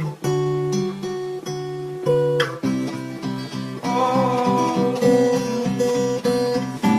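Instrumental music: acoustic guitar chords plucked and strummed, with a higher held melody line coming in about four seconds in.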